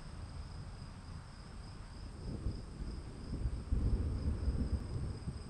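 Insects trilling steadily at a high pitch, with a low, irregular rumble underneath that grows louder about two seconds in.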